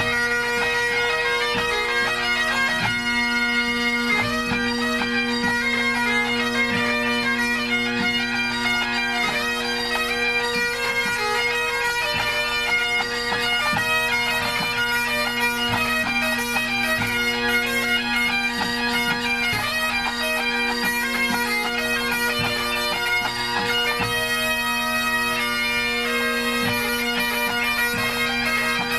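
A pipe band's Great Highland bagpipes playing together during a tune-up: a steady drone underneath, with chanter notes moving over it.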